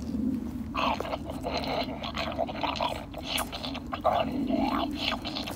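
Crate Creatures Blizz talking plush toy playing electronic chewing sounds from its speaker while a plastic toy popsicle is pushed into its mouth, with irregular plastic clicks from the handling.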